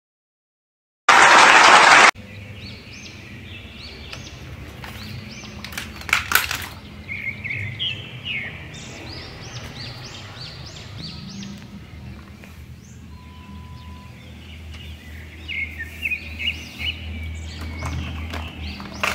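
A loud burst of hiss lasting about a second near the start. Then birds chirping again and again in short rising calls over a low steady hum, with a few sharp clicks.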